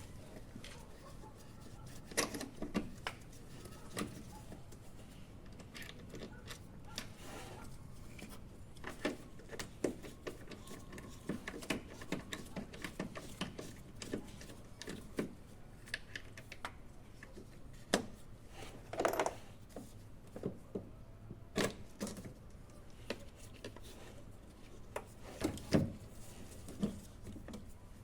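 Irregular clicks, taps and knocks of hand tools and metal engine parts being handled, with a longer scrape about 19 seconds in.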